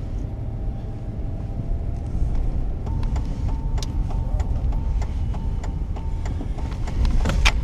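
Car running at low speed, heard inside the cabin as a steady low rumble of engine and road noise. About three seconds in, a regular ticking starts at about three ticks a second, with a few sharper clicks near the end.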